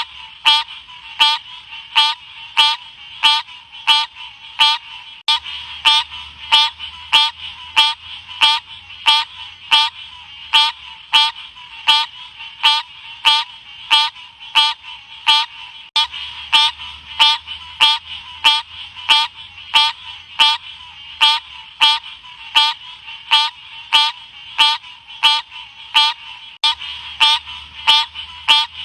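Odorrana livida frog calling: a short, sharp note repeated at a steady, even pace, a little under two a second.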